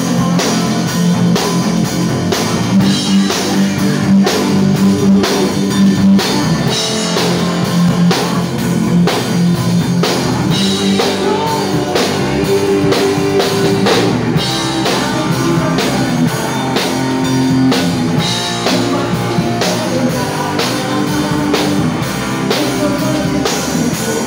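Live rock band playing: a drum kit keeping a steady beat under electric guitar.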